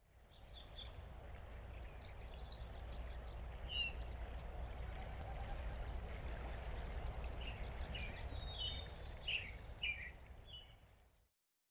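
Outdoor nature ambience: small birds chirping and trilling over a steady low wind rumble, fading in at the start and fading out about a second before the end.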